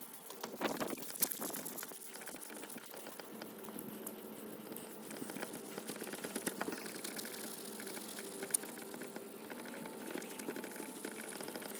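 Wet 2,000-grit sandpaper rubbed side to side by hand across a plastic headlight lens: a steady rubbing with many small ticks.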